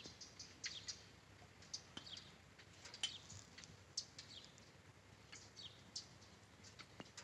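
Small birds chirping faintly: short, high chirps, some dropping in pitch, scattered irregularly at one or two a second.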